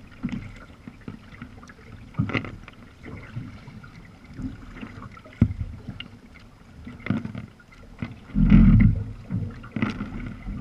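Sea kayak under way: irregular splashes and knocks of paddle strokes and water slapping the hull over a low rumble of water and wind. There is a louder low surge about eight seconds in.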